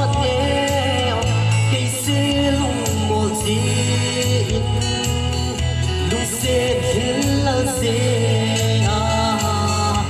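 Music with a singing voice over a steady bass line, in the manner of a gospel song.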